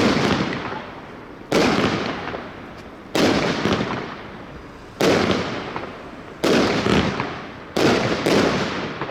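Gaoo Diamond 3 consumer fireworks battery firing shot after shot, about one every second and a half. Each shot starts with a sharp bang, then a hiss fades out, and the last two shots come close together near the end.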